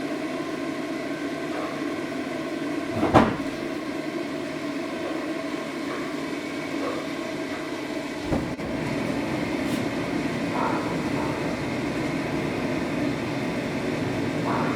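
Forge running with a steady hum and rush of air. A sharp knock about three seconds in and another about eight seconds in, after which it runs a little louder.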